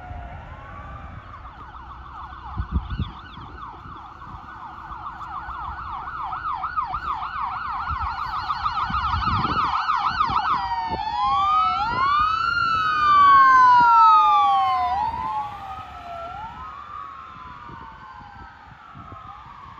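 Electronic sirens of responding fire apparatus: a fast yelp that grows louder as it approaches, switching about ten seconds in to a slower rising-and-falling wail, two sirens overlapping. They are loudest a few seconds after the switch and then fade as they move away. A short low thump sounds about three seconds in.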